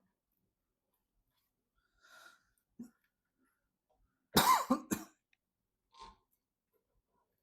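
A person coughing twice in quick succession about four seconds in, close to the microphone, with a few faint small sounds before and after.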